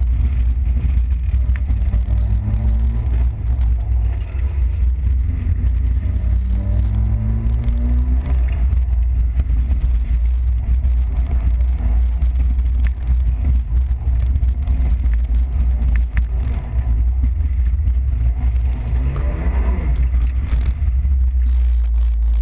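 Peugeot 205 XS's engine heard from inside the car while it is driven hard, over a heavy low drone. It revs up in pitch twice early on as it accelerates, then drops in pitch near the end as the car slows.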